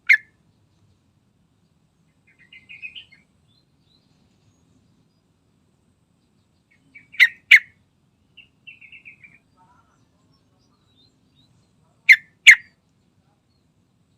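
Yellow-vented bulbul calling: a single sharp, loud note at the start, then two quick pairs of sharp notes later on. Softer chattering phrases come in between.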